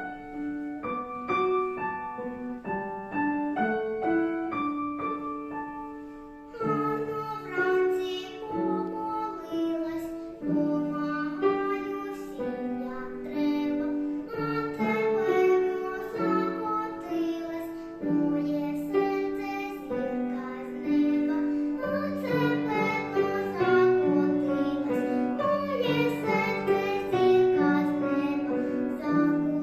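A young girl sings a Ukrainian song over piano accompaniment. For the first six seconds or so the piano plays alone, then her voice comes in and carries the melody.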